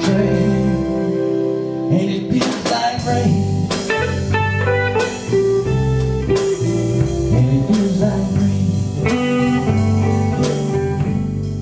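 Blues band playing a song, guitar lines over a bass line, with drum hits.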